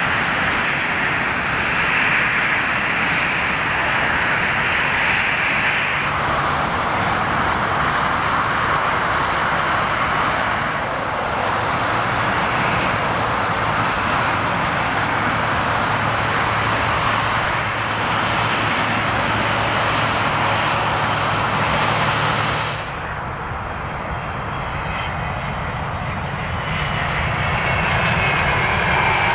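Jet airliners' turbofan engines running, a steady whine and rumble from planes taxiing at low power, changing abruptly twice as the footage cuts between aircraft. In the last few seconds the engine noise grows louder as an airliner runs down the runway on its takeoff roll.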